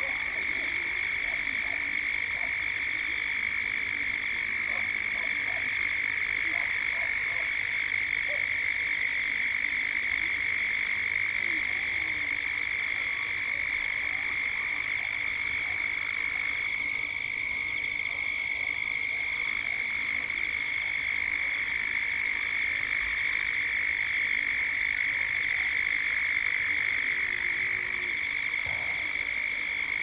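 Cicada chorus: a steady, unbroken high-pitched drone, with a few faint short calls from other animals beneath it.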